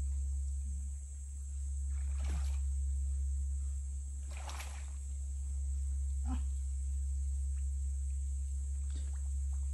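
Water sloshing and splashing a few times as a person wades and works his hands in a shallow muddy stream, over a steady low rumble and a thin, steady high-pitched whine.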